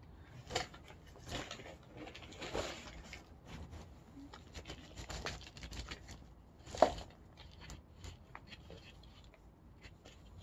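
Hands working potting soil and plastic pots while transplanting a seedling from a plastic cup into a one-gallon plastic nursery pot: scattered rustling, soil crumbling and light taps, with one sharper knock about two-thirds of the way through.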